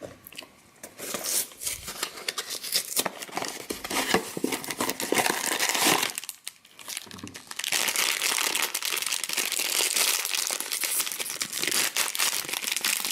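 Funko Mystery Minis blind-box packaging being opened by hand: cardboard tearing and the sealed foil bag inside crinkling and ripping, with a short pause about six seconds in.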